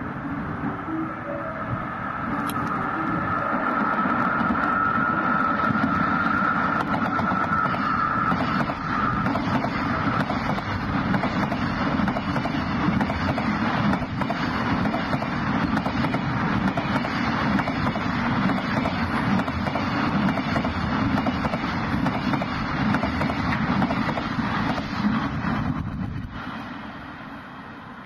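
Container freight train hauled by an EF66 DC electric locomotive passing through at speed: a steady rumble and clatter of wheels on the rails, with a high whine during the first several seconds. The noise fades over the last few seconds as the last wagon goes by.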